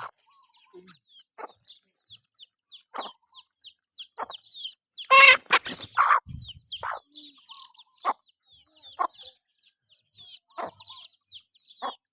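Chickens clucking with short calls about once a second over a steady stream of quick high peeps, and one louder, longer squawk about five seconds in.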